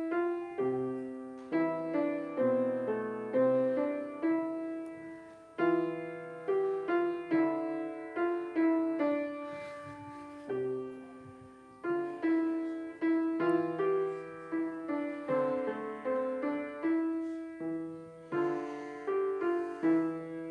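A child playing a short, simple tune on a piano, one note at a time over lower bass notes, with a couple of brief pauses between phrases.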